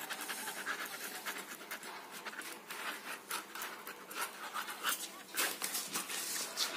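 Ballpoint pen scribbling shading strokes on a carpet: a quick, uneven run of short scratchy strokes.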